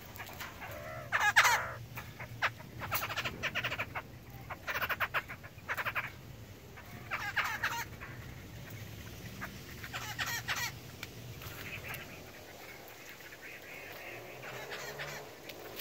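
Young black-throated laughingthrushes calling: short rattling calls repeated every second or two, with longer pauses in between near the middle and later on.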